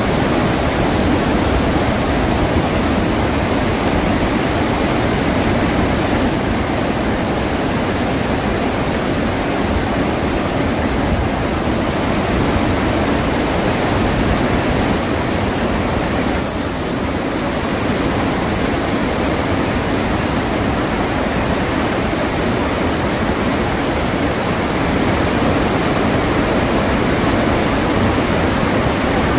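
Iguazu Falls: a large waterfall's heavy, steady rush of falling water, without let-up.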